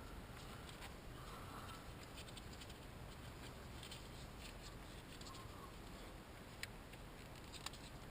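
Faint hand-work noises of small engine parts being handled and fitted back together: light clicks and rustling, with two sharper ticks near the end.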